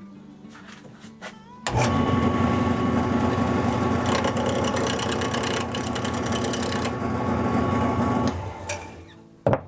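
Wood lathe motor switched on, starting suddenly and running steadily with a whine for about six and a half seconds, then switched off and fading out. A single sharp knock near the end.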